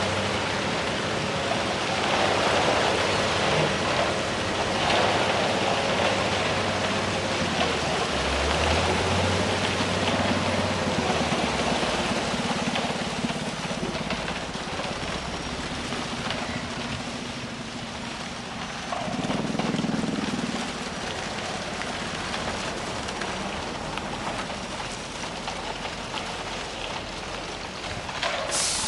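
Heavy diesel machinery running steadily over a constant hiss, with a low engine hum that shifts in pitch now and then.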